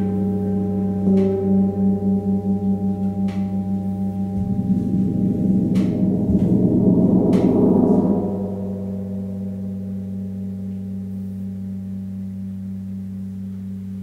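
Suspended gongs ringing with long sustained tones that pulse slowly at first. About four seconds in, a gong is worked up into a swelling wash of sound that peaks near eight seconds and then settles back into a steady ring. A few faint clicks sound over it.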